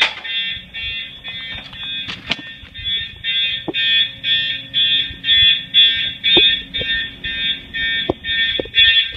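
Fire alarm horns sounding a march-time general alarm, a pulsing tone at about two blasts a second, set off by an activated 135-degree heat detector on a Unimode 9050UD fire alarm system. A steady low hum and a few short knocks lie under it.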